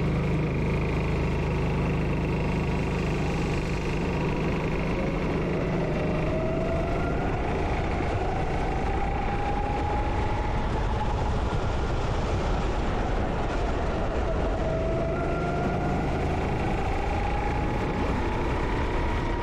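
Go-kart engine running on a wet-track lap, its pitch slowly rising and falling as the throttle is fed in and eased through corners, over a steady background of wind and road noise.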